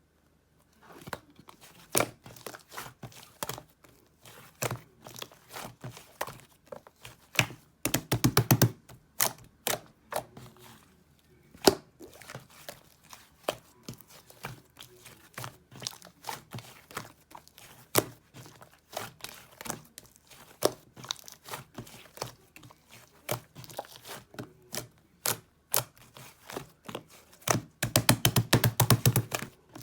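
Irregular sharp clicks, taps and knocks from objects being handled close up, with two fast rattling runs of clicks, one about eight seconds in and one near the end.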